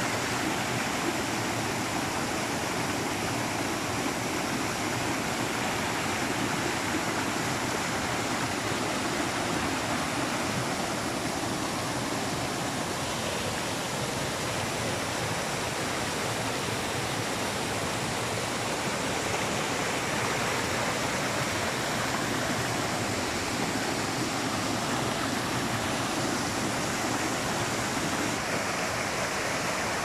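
Small waterfall splashing down a rock ledge onto stones: a steady rush of falling water.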